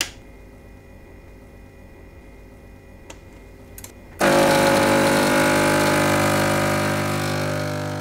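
Espresso machine sound effects: a low steady hum, two small clicks as the selector knob turns, then about four seconds in the pump starts suddenly with a loud steady buzz that slowly fades.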